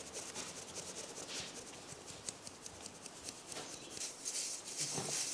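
Gram flour rubbed through a wire mesh sieve by hand over a metal bowl: a faint, scratchy rustling with light ticks that grows louder about four seconds in.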